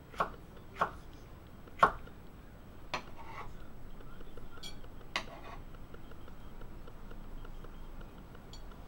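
Condor Nessmuk knife blade tapping on a wooden cutting board while slicing small sweet peppers: sharp single taps about once a second for the first three seconds, then one more about five seconds in.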